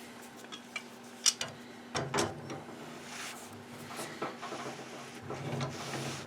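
Hand tools clinking and knocking against metal parts of an old washing machine's drive: a handful of sharp clicks and light knocks, the loudest about a second in, over a faint steady hum.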